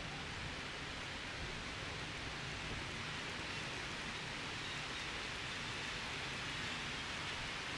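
Steady, even outdoor hiss with no distinct events.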